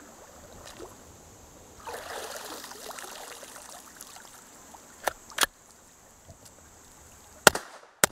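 Water splashing and running off as the Hi-Point pistol-caliber carbine comes out of the creek, two quick metallic clicks of the action being worked, then two sharp gunshots near the end, about half a second apart, the first the loudest sound. The carbine fires after being submerged.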